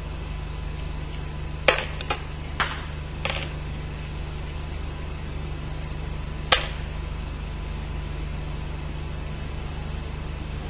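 Metal tool clinking on nuts as a T-handle box spanner undoes the clutch nuts: five short sharp clicks, four close together in the first few seconds and one more a few seconds later, over a steady low hum.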